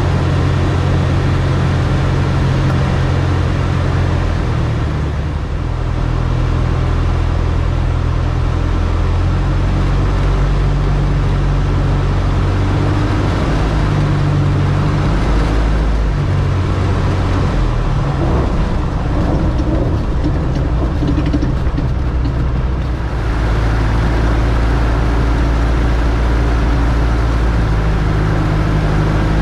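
Cub light airplane's piston engine and propeller running continuously, close to the cowling, with a constant wind rush. The engine's pitch steps down and back up several times as the throttle is changed.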